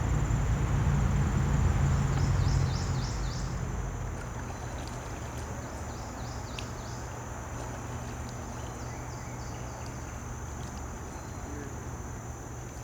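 Steady high-pitched insect drone with a few short chirps, over a low rumble that fades away about three seconds in.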